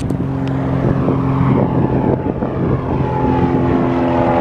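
Cessna 182Q Skylane's six-cylinder Continental O-470 engine and propeller at climb power, a steady drone as it passes low overhead after take-off.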